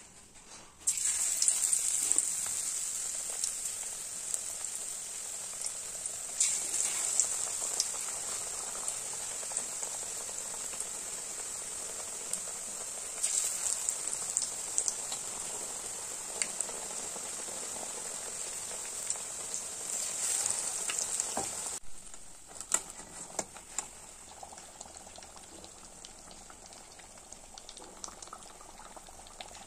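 Battered raw-banana (vazhakkai) bajji deep-frying in hot oil in a metal kadai: the sizzle starts suddenly about a second in and holds as a steady crackling hiss, swelling louder a few times. It drops to a quieter sizzle after about 22 seconds, with a few sharp clicks.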